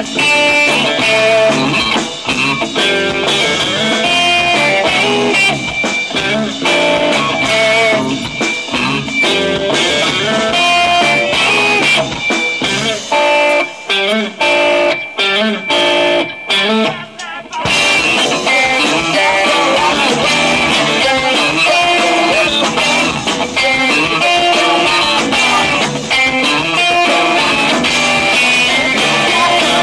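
Live rock band, with electric guitar, bass guitar and drums, playing a song. About halfway through, the band plays a run of short stop-start hits with gaps between them, then comes back in at full volume.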